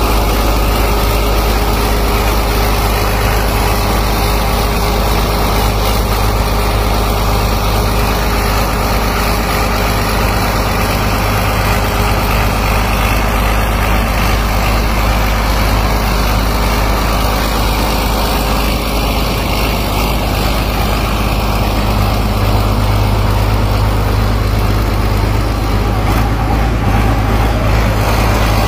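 Engine of a customised tracked crawler machine running steadily, loud and even, with a strong low rumble.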